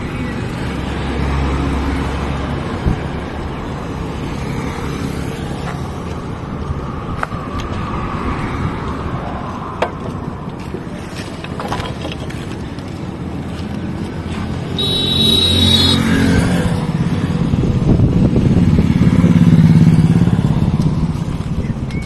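Road traffic: motor vehicles running and passing, with engine noise swelling twice in the second half and loudest near the end. About fifteen seconds in there is a brief high-pitched tone.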